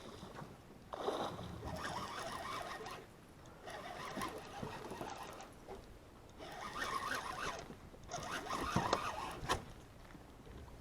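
A fishing reel being cranked in short rasping bursts, with pauses between them, while a large fish is reeled in against the rod.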